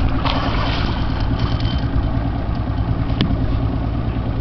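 Boat engine idling steadily, with a single sharp click about three seconds in.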